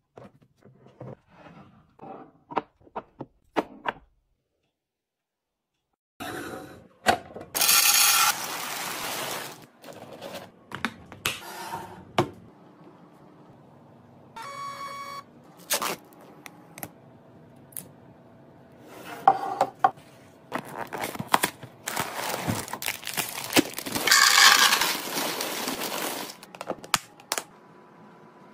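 Containers and packaging being handled while restocking a kitchen: a string of clicks, taps and knocks, with two longer rushing stretches, one about a quarter of the way in and a louder one near the end.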